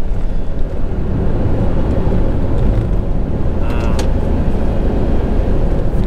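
Car driving at night on a forest road: a steady low road and engine rumble. A brief vocal sound about four seconds in.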